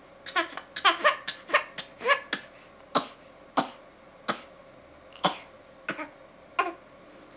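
A young child's fake coughing: a string of short, forced little coughs. They come in a quick cluster at first, then spread out to one every half-second or so.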